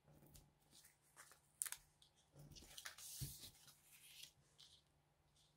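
Faint rustling and small clicks of paper being handled as square foam pop dots are taken from their sheet and pressed onto paper cut-outs, over a faint steady hum.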